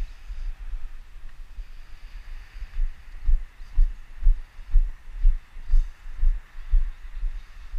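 Low, dull thuds about twice a second, growing stronger about three seconds in: a person's walking footsteps, carried through a body-worn GoPro.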